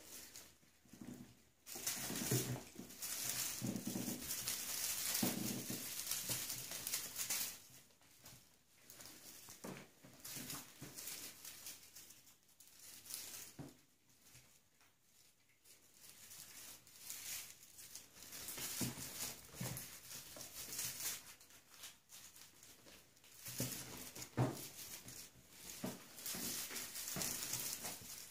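Bengal kittens scrabbling and pouncing at a feather wand toy, with claws on a sisal scratching post: irregular bursts of rustling and scratching with short pauses between.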